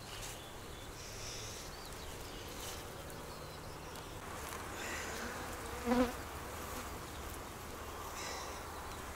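Buckfast honeybees buzzing steadily around an open hive while its brood frames are taken out one by one, with one short, louder sound about six seconds in.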